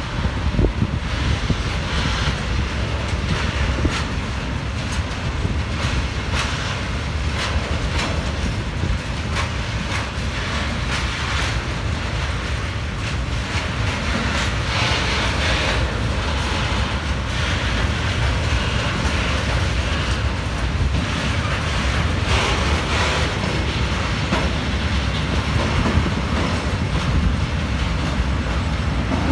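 Train hauled by a Traxx class 186 electric locomotive rolling steadily through the station, with a deep rumble and a constant clatter of wheels over rail joints.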